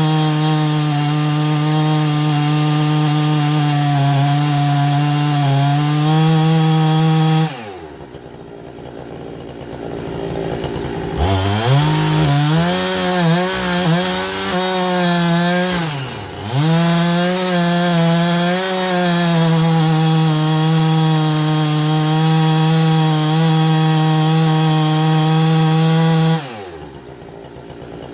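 Chainsaw running at high revs, cutting pine wood. Its engine note falls away as the throttle is let off about seven seconds in and again near the end. In between it comes back up with a wavering pitch under cutting load, dipping once briefly.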